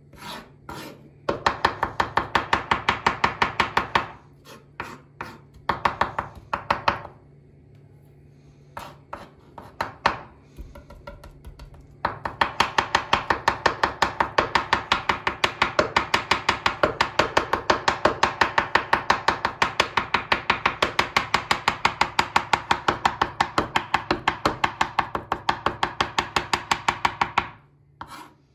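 Kitchen knife rapidly chopping and mincing garlic cloves into fine bits, several quick strokes a second. It starts in short bursts, then runs in one long continuous stretch from about twelve seconds in until just before the end.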